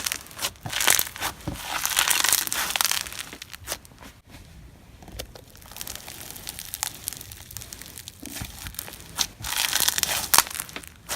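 Foam-bead slime (floam) being squeezed and pressed by hand, the beads crackling and crunching in bursts, loudest about a second in and again near the end.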